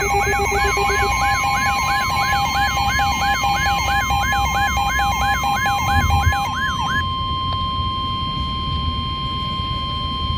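Emergency alert tones heralding a severe thunderstorm warning: a siren-like electronic sweep falls in pitch about three times a second over steady tones. The sweep stops about seven seconds in, leaving a single steady tone near 1 kHz.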